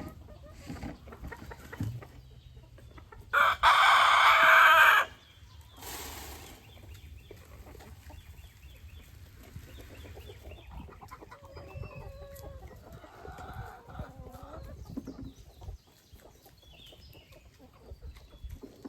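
A rooster crows once, loudly, about three and a half seconds in, over chickens clucking.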